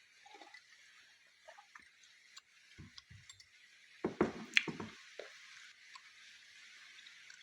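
Mouth sounds of someone biting and chewing edible Bashkir clay: scattered small clicks, then a louder burst of bite and chew sounds about four seconds in. Under it runs a steady hiss of rain.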